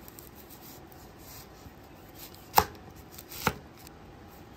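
Chef's knife slicing a red onion into rounds on a wooden cutting board. The blade knocks sharply on the board twice, about a second apart, a little past halfway.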